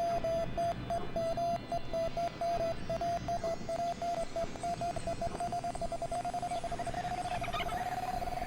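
Ambient electronic music: a mid-pitched beeping tone, about three beeps a second, over a steady hissing bed. The beeps run closer together and merge into one held, slowly rising tone near the end.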